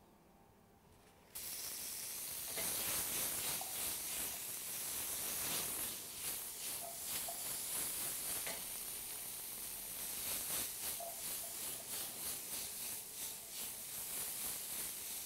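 Diced zucchini and pancetta frying in oil in a small non-stick pan: a steady sizzle that starts suddenly about a second in. Near the end the pan is tossed, shuffling the pieces.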